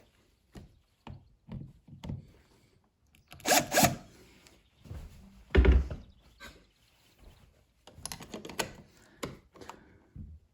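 Short scraping and rasping strokes with clicks as a dimmer switch is worked into its wall box and its mounting screws are driven with a hand screwdriver, with one dull thump a little past the middle.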